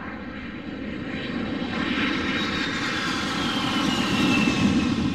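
Jet aircraft noise swelling steadily, with a high whine that glides down in pitch as the sound peaks near the end, like a jet passing.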